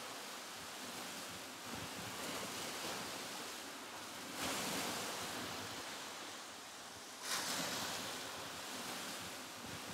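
Sea waves washing in, a steady rushing with swells that surge in about four and seven seconds in and slowly fall away.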